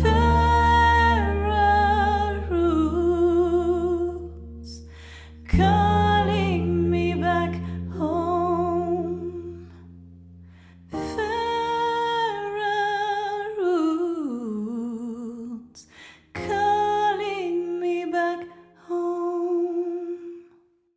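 A woman's voice sings a wordless melody with vibrato over sustained piano chords, in four phrases each begun by a new chord. It fades out near the end.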